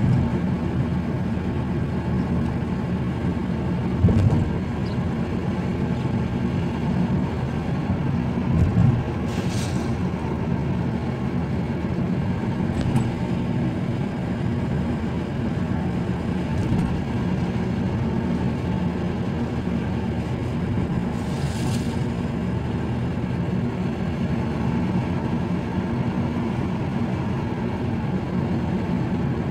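A moving car's engine and tyre noise heard from inside the cabin, a steady low rumble. There are two short thumps, about four seconds in and again near nine seconds.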